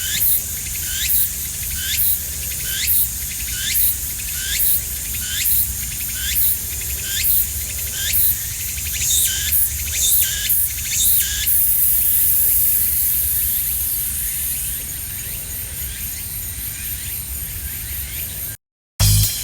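Tsukutsukuboshi cicada (Meimuna opalifera) singing its repeated phrase, a rising high-pitched chirp about once a second. About twelve seconds in it breaks into a sustained buzz, which fades to a fainter buzz and cuts off suddenly near the end.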